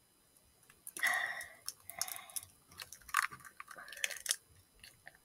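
A child eating a piece of candy: irregular chewing and biting noises close to the microphone, starting about a second in and stopping after about four seconds.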